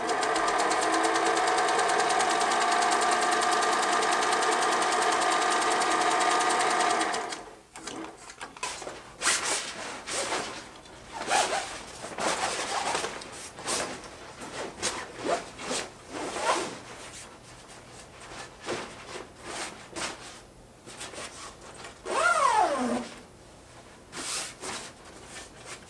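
Black vintage domestic sewing machine running steadily, stitching heavy black fabric, then stopping sharply about seven seconds in. After that comes the rustling and handling of a stiff fabric cover, with scattered light knocks and a short sound falling in pitch near the end.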